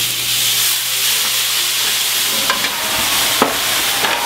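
Sliced beef flank steak frying in a very hot pan just after a splash of cognac, with a loud, steady sizzle as it is stirred and turned. A sharp knock of the utensil on the pan comes about three and a half seconds in, amid faint scraping.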